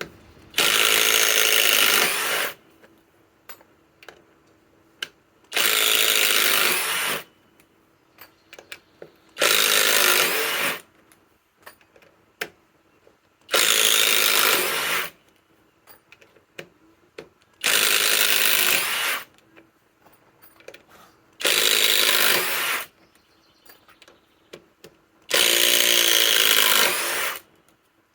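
Kobalt XTR 24-volt impact driver backing out lag screws, hammering in seven bursts of one to two seconds each, about four seconds apart. Small clicks fall between the bursts.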